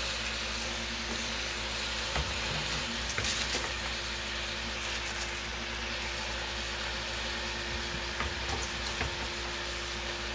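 Cabbage with peppers and onions sizzling in butter in a pan, a steady frying hiss with a few light clicks. The cabbage has only just gone in and is still stiff, not yet wilted.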